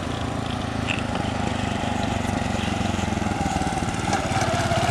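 Motorcycle engine running with a steady rapid pulse, growing gradually louder.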